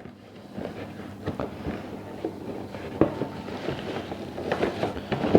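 A cardboard kettle box being opened and its contents handled: irregular rustling and scraping with scattered light knocks, a little busier near the end.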